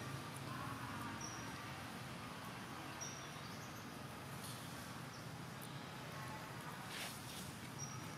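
Quiet outdoor ambience with a few short, high-pitched chirps spread through, four in all, and a brief soft rustle about seven seconds in.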